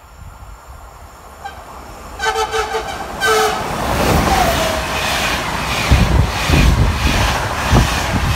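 EU44 Husarz (Siemens Taurus) electric locomotive sounding two short horn blasts a little over two seconds in. It then passes close at speed hauling passenger coaches, a loud rush of wheels on rail with rhythmic thuds as the wheels cross rail joints.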